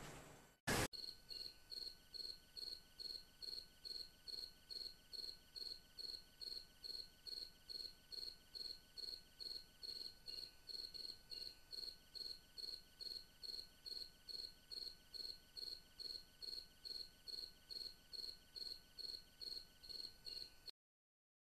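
Crickets chirping in a steady rhythm, about two to three chirps a second, cutting off suddenly near the end; a single short click just under a second in.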